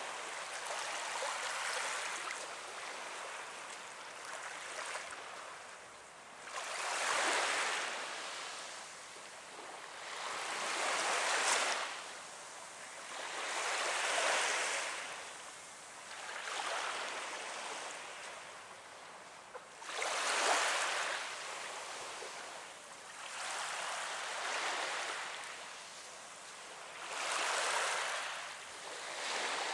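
Small waves of a calm sea lapping on a sandy beach, each one washing up and drawing back in a soft swell of hiss about every three to four seconds.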